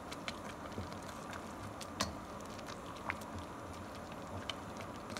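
Tomato and serrano salsa simmering in a stainless steel pot: a steady low hiss with scattered light clicks and pops.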